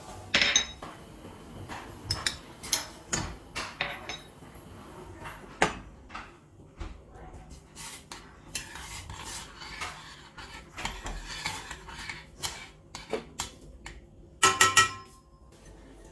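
Metal kitchen utensils and vessels clinking and knocking against each other in a run of separate sharp strikes, some with a short metallic ring, and a softer scraping stretch in the middle. The loudest clatter comes near the end.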